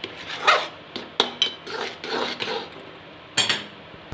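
Metal spatula scraping and stirring a thick cashew-coconut barfi mixture around a steel kadhai: a run of rasping strokes with sharp clinks of metal on metal, the loudest near the end. The mixture is being cooked down until it is thick enough to set into barfi.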